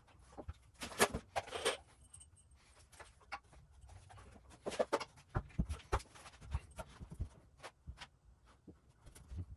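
Irregular knocks, clicks and short rustles of hands handling tools and hardware, with no impact driver running.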